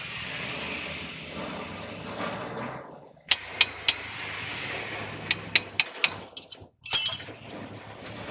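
A steady hiss for about three seconds, then a string of sharp, irregular metallic clinks and knocks over a low steady hum, the loudest strike near the end: hand tools and metal parts being struck and handled.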